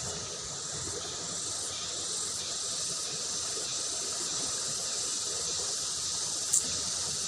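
Steady rush of fast-flowing river water, with insects chirring over it in a regular pulse. A single sharp click about six and a half seconds in.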